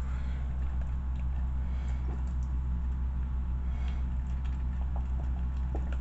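Mr. Coffee single-serve coffee maker brewing, a steady low hum with faint ticks as hot water trickles from the spout into a filter of coffee grounds.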